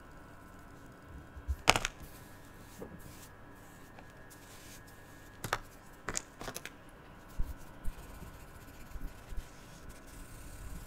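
Small handling noises of craft supplies on a tabletop: a sharp plastic click about two seconds in, three more clicks a few seconds later, and some soft thuds. Near the end a felt-tip marker begins rubbing on paper.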